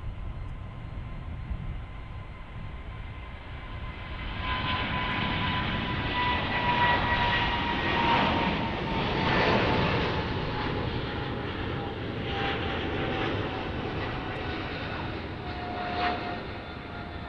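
Turbofan engines of a taxiing Boeing 787 Dreamliner running, a whine with a slowly falling pitch over a jet rush that swells to its loudest midway and then eases. A brief knock comes near the end.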